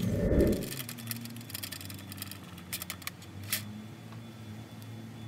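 A brief low thump or rumble at the start, then scattered light clicks and rattles from a wire grill rack as a rack of elk is lifted off it and flipped over by hand.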